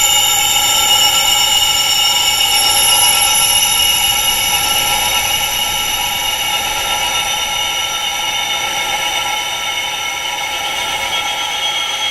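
Wind chimes ringing together in a dense, steady shimmer of many overlapping high metallic tones, with no separate strikes standing out; it dips slightly in level about ten seconds in.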